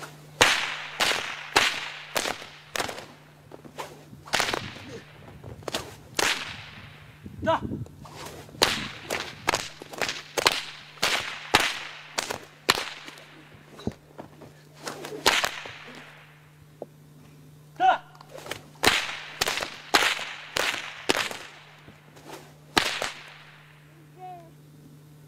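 A Shaolin whip swung and cracked again and again, each sharp crack often led in by a swish. The cracks come in quick runs with short pauses and stop shortly before the end.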